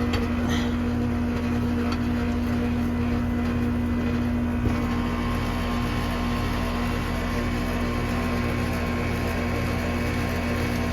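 Heat pump outdoor unit running steadily on freshly fitted capacitors: a steady compressor and condenser-fan hum with a strong low tone, the old run capacitors having tested dead. A small knock about four and a half seconds in.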